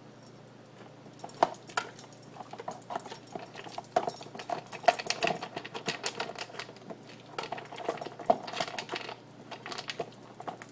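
Dry kibble and the plastic lid of an AiKiou Junior slow-feeder bowl clicking and rattling in rapid, irregular bursts as a dog noses the lid around to get at his food. The clattering starts about a second in and eases off near the end.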